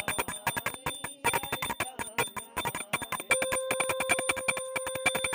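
A puja bell rung rapidly for aarti, with many clanging strikes a second over a steady ringing. About three seconds in, a long steady pitched tone joins it.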